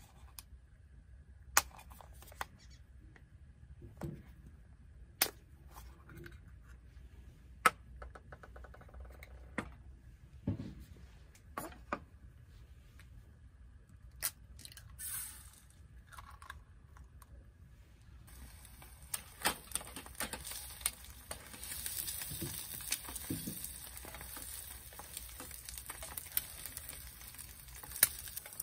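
Sharp clicks, taps and knocks of small objects being handled. About 18 seconds in, a steady high hiss starts and carries on with scattered crackles.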